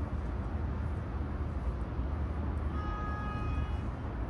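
Steady low rumble of outdoor city ambience, distant traffic and wind. About three seconds in comes a brief faint tone of several pitches at once.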